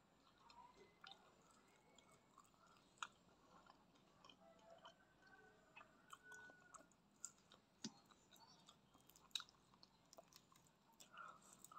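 Faint, close-miked chewing of fried chicken: soft wet mouth sounds broken by scattered sharp clicks and small bites.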